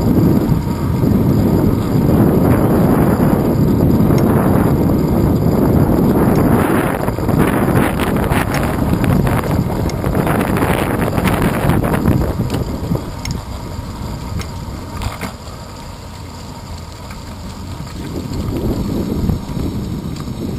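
Wind buffeting a handlebar-mounted camera's microphone on a moving bicycle: a loud, steady rumble that eases off about two-thirds of the way through as the bike slows, with a few light clicks from the ride.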